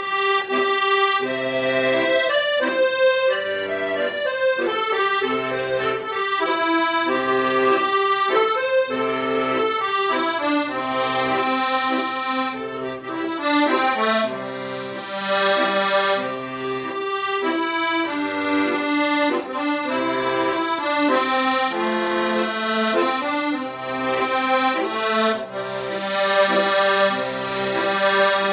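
Accordion playing a slow, old-style melody, with low bass notes on a regular beat underneath.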